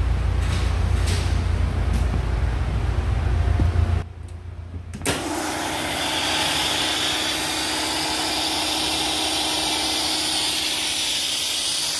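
Speedaire 3 hp single-stage, belt-driven electric air compressor running steadily. A strong low hum carries the first four seconds; after a brief drop in level the motor and pump run on with a brighter, noisier steady sound.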